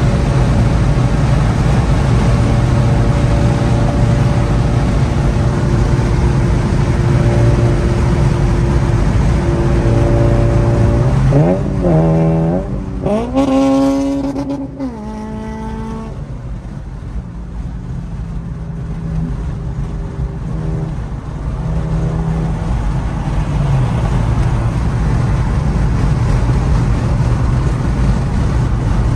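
Car engine and exhaust droning at highway speed with road noise, heard from inside a car. About twelve seconds in an engine revs up hard, its pitch rising for a few seconds, then it drops back to a quieter, steadier drone.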